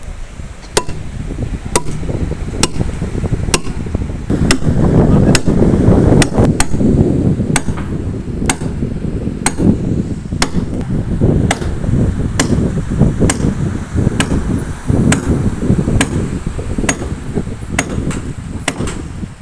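Steady hammering on timber, about one blow a second, over a loud low rumble that swells a few seconds in.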